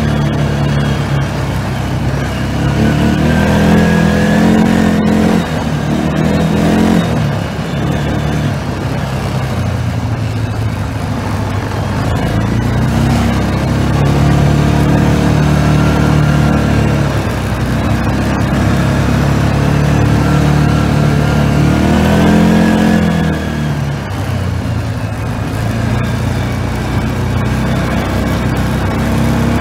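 ATV engine running while being ridden, revving up and easing off several times as the rider works the throttle.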